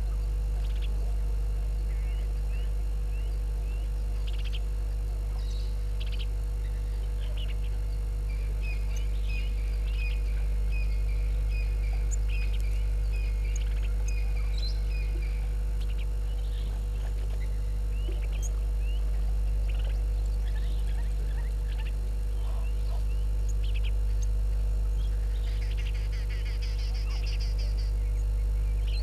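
Wild bush birds calling over a steady low hum. The calls are short chirps and notes throughout, with a quick run of repeated notes in the middle and a burst of higher chatter near the end.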